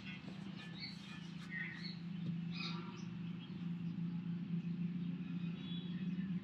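Industrial lockstitch sewing machine stitching a seam, a steady hum that grows louder about two seconds in.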